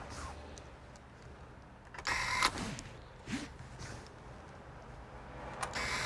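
Two short whirs of a small electric motor, each about half a second, the first about two seconds in and the second near the end.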